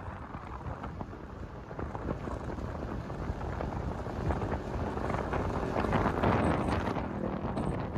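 Wind buffeting the microphone, with a vehicle running underneath; the rumble grows louder in the second half.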